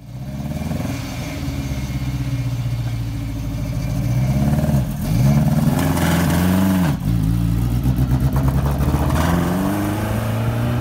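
Classic Alfa Romeo coupé race car's four-cylinder engine idling, then revved up and down a few times about halfway through and again near the end.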